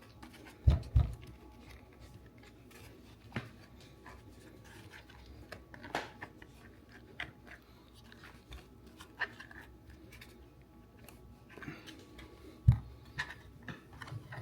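Scattered small plastic clicks and light knocks as the back cover of a car steering wheel is worked loose and slid off by hand, with dull thumps about a second in and again near the end.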